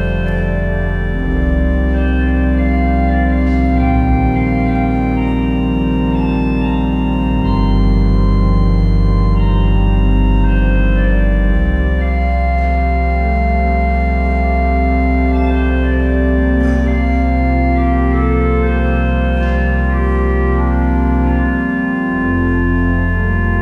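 Church pipe organ playing slow, sustained chords over deep held pedal notes that change every few seconds.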